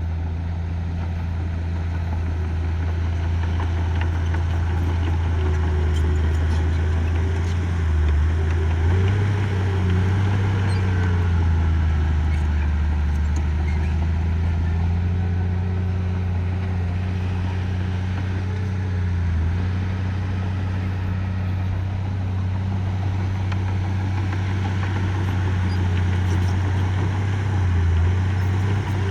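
Diesel engine of heavy earthmoving machinery running steadily, its pitch rising and dipping several times as it works. A few faint clicks sound now and then.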